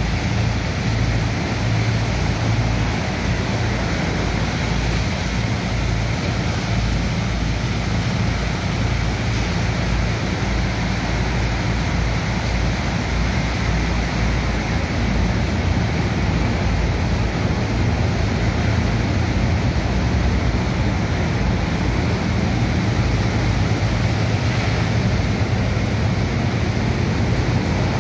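High-pressure water jets from hoses spraying and splashing onto wet sand, washing it into slurry for the suction pump, over the steady low drone of the pump machinery.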